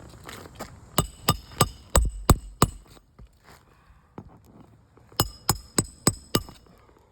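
Hammer blows in two quick runs of about six strikes each, with a ringing metallic note over the knocks.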